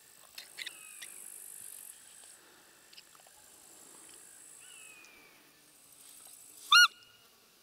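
Steady high buzzing of insects in the grass, with a few faint falling bird calls. Near the end comes one short, loud squeak that rises and falls in pitch, blown close to the microphone on a roe deer call.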